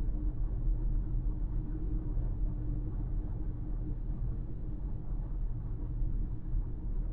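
Car driving at highway speed, heard from inside the cabin: a steady low rumble of tyre and engine noise, with a faint hum that fades out about halfway through.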